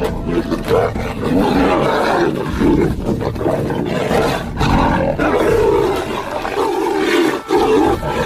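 Large wild animals roaring, loud and near-continuous, in an animal fight, with a brief break about seven and a half seconds in.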